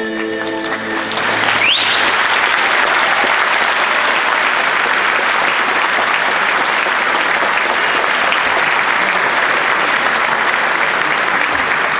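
The last erhu note dies away in the first second, then an audience applauds, steady and loud, with one rising whistle from the crowd about two seconds in.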